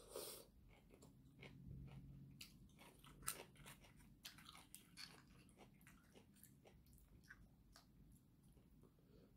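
Faint close-up sounds of eating: a breath blown out through the mouth at the start, then chewing with small wet clicks. Chopsticks tap against plastic takeaway containers, the sharpest click about three seconds in.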